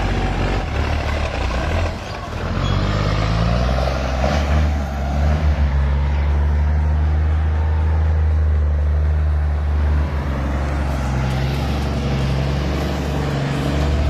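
Heavy logging truck's diesel engine labouring under load on a steep climb, a deep steady note that shifts pitch a few times.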